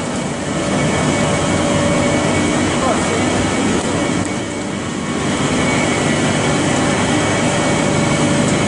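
Rice husk pellet mill production line running: a loud, steady machinery drone with a few steady hum tones through it.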